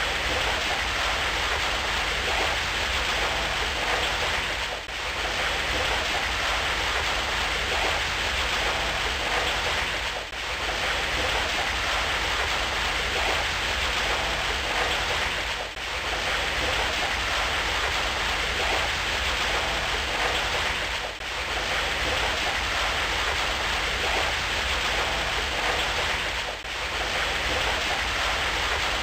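Steady rain falling, an even dense hiss with no single drops standing out. It dips briefly in level about every five and a half seconds.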